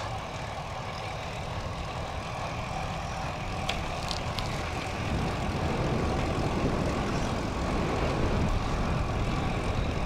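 Wind buffeting the microphone of a bicycle-mounted camera in a strong crosswind while riding, a steady low rumble that grows somewhat louder about halfway through.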